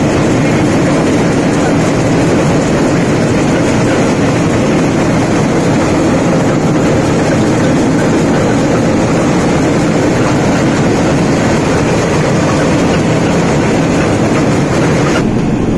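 Small rice mill machine running steadily under load while milling paddy: a loud, even mechanical din, with paddy rattling over its vibrating mesh cleaning sieve.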